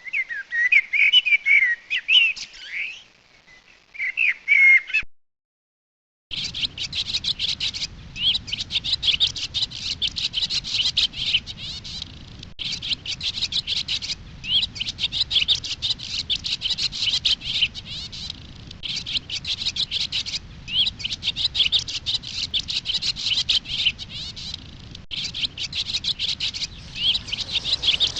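Songbird song. First a few seconds of clear whistled notes that glide up and down, cut off about five seconds in. After a brief silence, a different recording of a songbird twittering rapidly in long phrases with short breaks, over a faint background noise.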